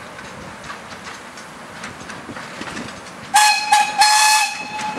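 15-inch-gauge steam locomotive running past with a light clatter of wheels on track, then sounding its steam whistle about three seconds in: two short blasts and a longer third one.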